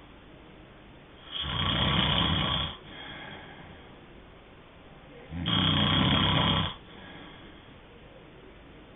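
A sleeping person snoring: two loud snores, each a little over a second long and about four seconds apart, each trailed by a softer breath.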